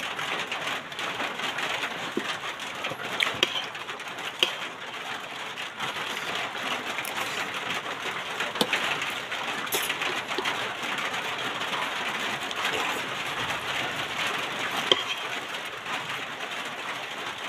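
Steady hissing background noise, with a few light clicks of cutlery and dishes at a meal.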